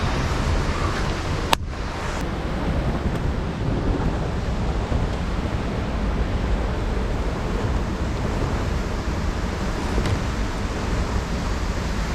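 Steady rushing of river water, with a single sharp click about a second and a half in.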